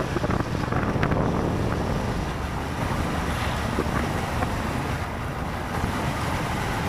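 Wind rushing over the microphone of a moving motorcycle, with a steady low rumble of the engine and road underneath.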